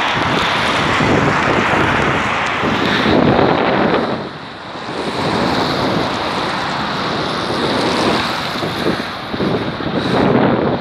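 Loud, gusting wind buffeting the microphone, an irregular rushing that dips briefly about four and a half seconds in.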